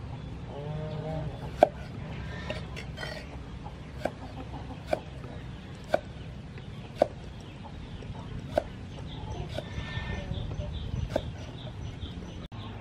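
Cleaver chopping onion on a round wooden chopping block: six sharp chops at irregular intervals, roughly a second or so apart. Chickens cluck in the background.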